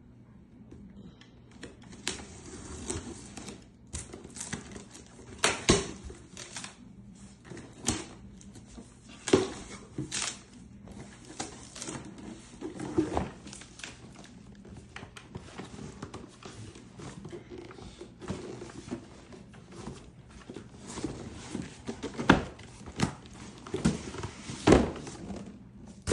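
A cardboard box and its packaging being handled and opened by hand: irregular taps, knocks and rustling, with a few louder thumps scattered through.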